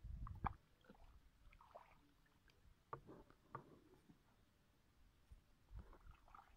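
Faint squelching and sloshing of bare feet and hands in wet mud and shallow water: a couple of louder squelching steps at the start, then scattered small squishes as hands dig into the mud.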